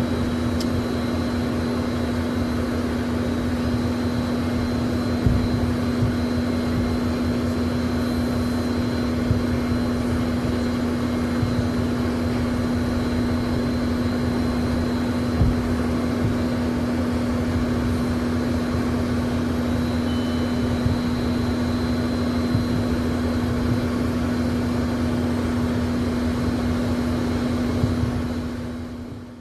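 Inside the cabin of a Learjet taxiing: the jet engines' steady hum with a strong low drone over a constant rumble, and a few brief thumps. The sound fades out near the end.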